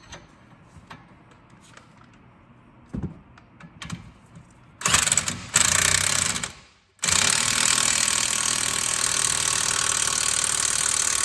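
Impact wrench hammering a strut-to-spindle bolt tight: a few light clicks as the socket is fitted, then a burst of about two seconds, a short pause, and a longer steady run of about five seconds.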